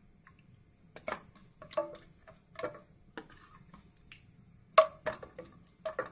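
Wooden spatula knocking and scraping against an aluminium pressure cooker while chicken curry is spread in its base: five or so separate knocks with a short metallic ring, the loudest near the end.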